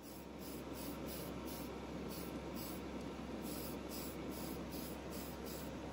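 Aerosol can of Tamiya fine primer spraying a primer coat onto a diecast body: a steady hiss.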